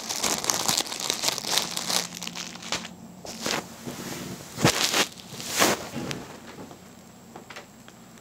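Small plastic zip-top bags crinkling as they are handled. The rustling is dense for the first few seconds, then breaks into a few separate crinkles that die away near the end.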